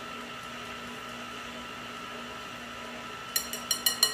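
Steady low room hum, then near the end a quick run of ringing clinks as a wire whisk is tapped against the rim of a mixing bowl.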